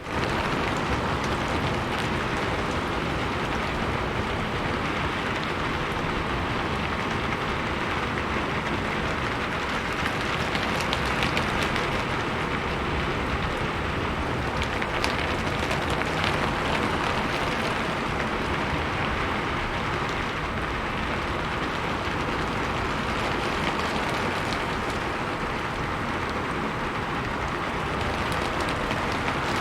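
Steady rain falling on a rooftop, an even hiss dotted with faint scattered drop ticks.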